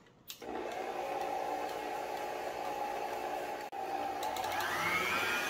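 Stand mixer motor running with its paddle beating butter and sugar, a steady hum. About four and a half seconds in, the pitch rises to a higher whine as the mixer is turned up toward its highest speed.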